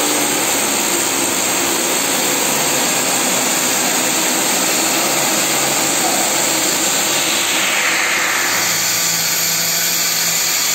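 A machine running with a steady, loud whooshing noise that shifts slightly in tone about eight seconds in.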